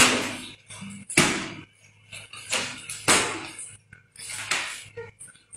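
A run of about five sharp slaps, roughly a second apart, each snapping on and dying away quickly.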